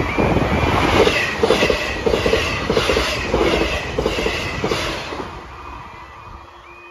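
Class 159 diesel multiple unit passing close by at speed, its wheels clattering in a rhythm about every half second, then fading away near the end. The crossing's warbling alarm is heard beneath it at the start and again as the train fades.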